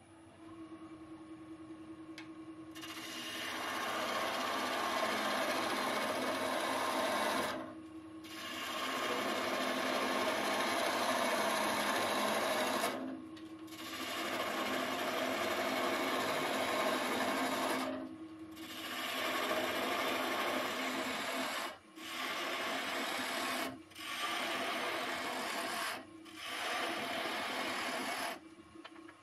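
Wood lathe motor humming, rising in pitch as it comes up to speed. Then a gouge cuts into the spinning stone pine blank with a loud, even shearing hiss, in about seven passes with short breaks between them.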